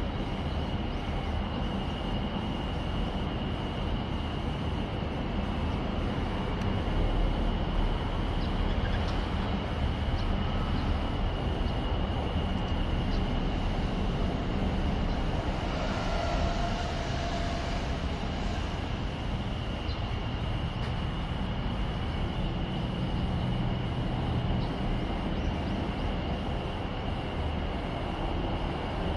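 Jet airplane flying overhead: a steady, distant rumble and hiss that grows slightly louder about halfway through.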